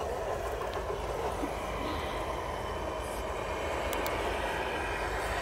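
Radio-controlled scale crawler truck's electric motor and gears whirring steadily as it crawls slowly over logs, with a few faint ticks.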